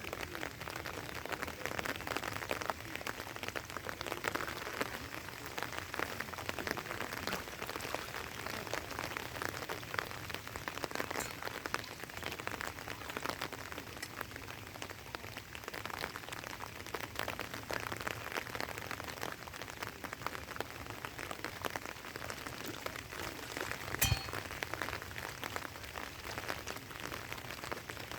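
Rain falling steadily, a dense patter of drops. One sharp click stands out near the end.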